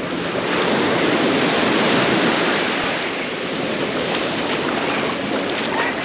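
Small sea waves breaking and washing up a sandy shore, the surf swelling louder about a second in and easing off again.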